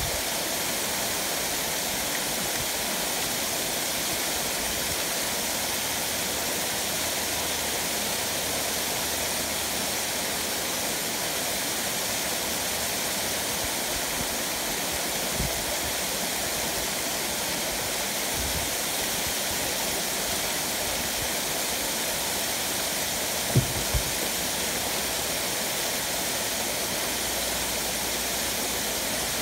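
Waterfall: water falling down a rock face and splashing onto boulders, a steady rushing hiss. A few brief low thumps cut through it, the sharpest pair a little past two-thirds of the way in.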